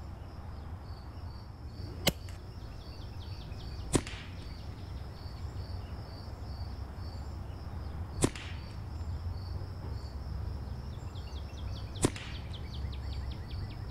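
Four sharp shots from an EDgun Leshiy 2 semi-auto PCP air rifle, spaced a few seconds apart, over crickets chirping steadily.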